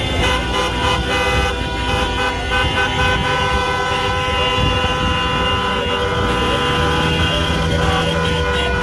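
Celebratory honking from a convoy of cars: many car horns of different pitches sounding at once and held almost without a break, over the engine and road noise of a moving car.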